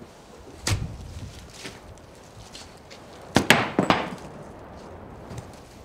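Footsteps on a floor strewn with dead leaves: a single knock about a second in, then a louder cluster of hard knocks a little past the middle.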